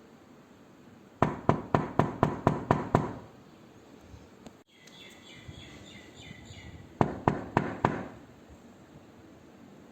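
Knuckles knocking on a door: a quick run of eight knocks at about four a second, then a pause, then four more knocks near the end.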